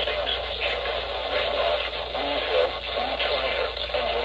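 Weather radio receiver playing a muffled broadcast voice, cut off above the middle range, over a steady low hum and hiss.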